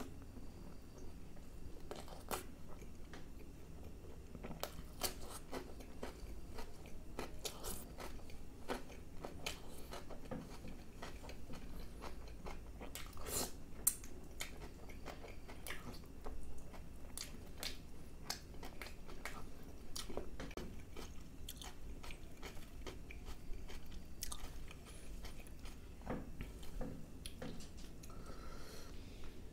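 Close-miked eating of chicken masala curry and naan: wet chewing and biting with many sharp mouth clicks and smacks throughout.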